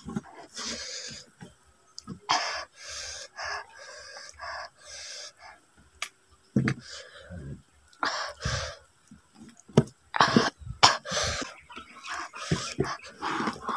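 Chickens clucking in short bursts, mixed with close-up smacking and chewing as rice is eaten by hand.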